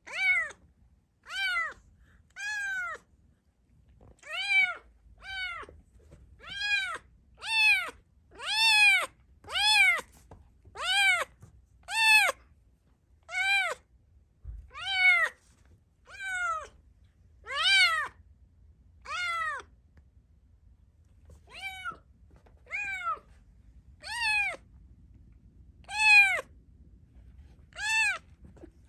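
Kitten meowing over and over, a short high call about every second or so, each call rising and then falling in pitch.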